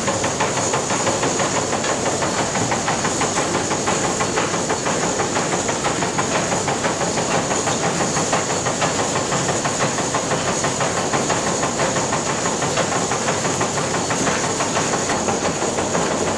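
An old grain mill's belt-driven machinery running: pulleys, flat belts and elevators make a steady, dense clatter with a constant high-pitched hiss on top.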